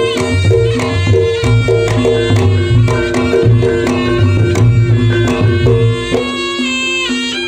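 Reog Ponorogo accompaniment music for the Bujang Ganong dance: fast kendang drum strokes over ringing gong and kenong tones, with a slompret reed melody sliding between notes near the end.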